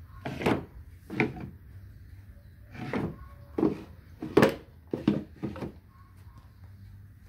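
Small wooden drawers of an old carved pyramid cabinet being slid in and out by their knobs, about seven short scraping knocks spread over a few seconds.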